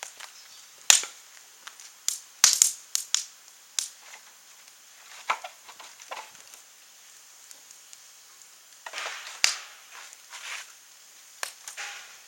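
Dry scrap wood cracking and crunching, a scatter of sharp snaps with short crunchy rustles between them, thickest about two to three seconds in and again near nine seconds.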